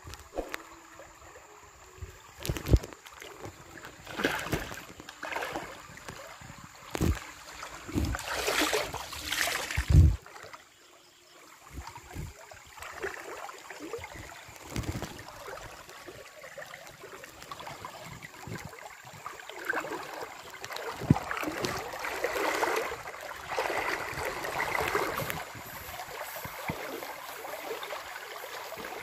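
River water splashing and sloshing as a person wades and handles a bamboo fish trap in a shallow stream. The splashes come in irregular bursts with a few sharp knocks, the loudest about ten seconds in, over the steady run of the current.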